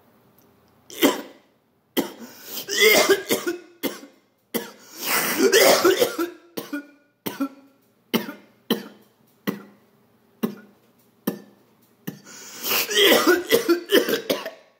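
A man coughing hard after a hit of smoke: several long coughing fits, with single sharp coughs spaced out between them and a last long fit near the end.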